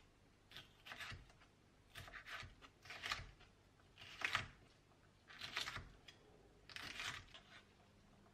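Kitchen knife slicing and dicing a red bell pepper on a bamboo cutting board. About six short runs of quick taps as the blade cuts through and strikes the board, each run under a second.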